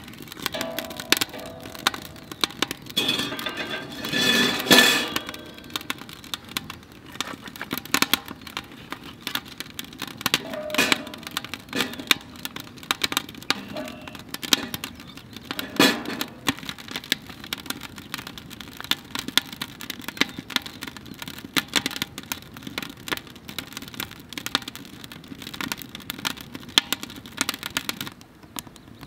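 Wood fire crackling in a stainless-steel Solo Stove Ranger fire pit, with sharp pops and snaps throughout and a louder burst of snapping about four seconds in.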